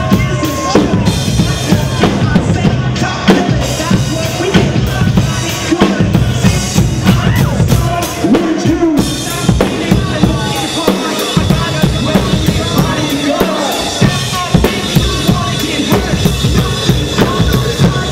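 Drum kit played fast and hard: dense, continuous strikes of bass drum, snare and cymbals.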